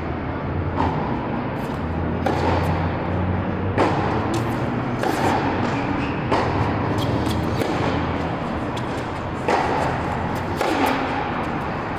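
Tennis ball struck back and forth by rackets and bouncing on an indoor hard court, each hit a sharp pop that echoes in the large hall, about one every one to one and a half seconds with a pause of about three seconds in the middle. A steady low hum runs underneath.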